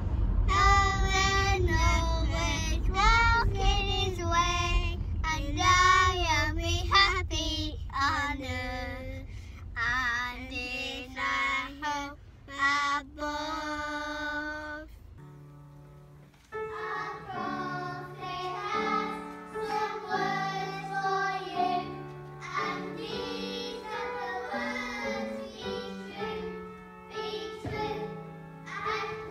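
Two children singing together over the low rumble of a moving car's cabin. About halfway through this cuts to singing in a church service, carried over held low accompaniment notes.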